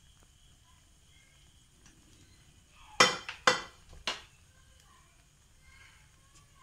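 Three sharp clinks of a kitchen utensil knocking against the pan while batter is poured, a little after the three-second mark, each ringing briefly; the first is the loudest.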